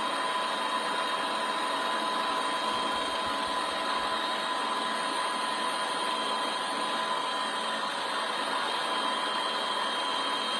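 Helicopter running steadily: an even drone with a high, steady whine.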